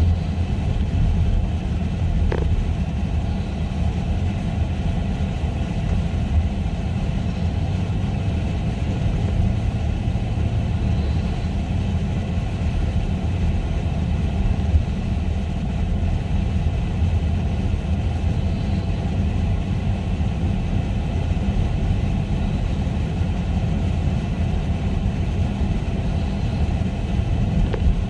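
A car running, with a steady low rumble. A faint short tick comes about two seconds in.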